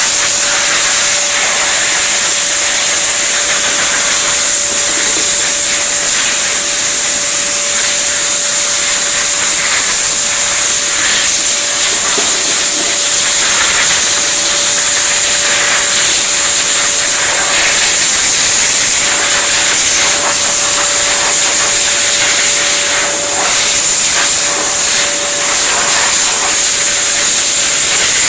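Blow dryer running steadily: a loud, even hiss of rushing air with a constant whine from its motor.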